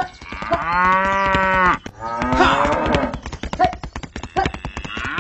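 Cattle mooing: one long moo of about a second and a half, then a shorter second moo, over a fast, steady run of clicks.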